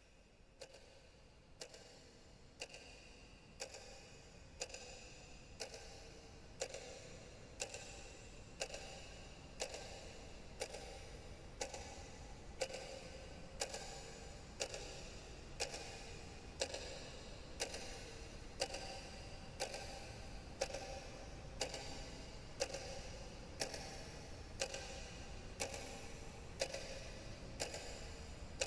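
A clock ticking steadily about once a second. It is faint at first and grows slowly louder.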